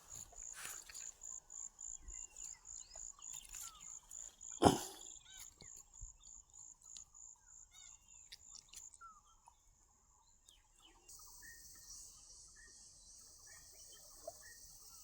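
Insects calling: a high, evenly pulsed chirping that stops about nine seconds in, then a steady high buzz from about eleven seconds, with short repeated chirps over it. One sharp knock about five seconds in is the loudest sound.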